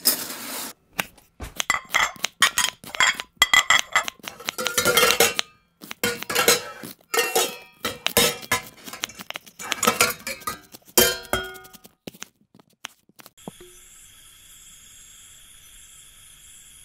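Kitchen utensils clattering: metal pots, pans, cutlery and glass clinking and knocking in a fast, irregular run that stops about twelve seconds in. A steady chirring of crickets then takes over.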